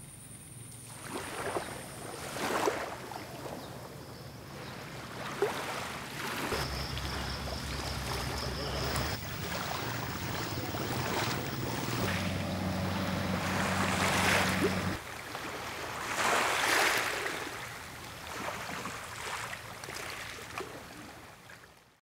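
Small waves washing onto a beach in repeated swells, with wind noise. A low steady hum runs through the middle, and the sound fades out at the end.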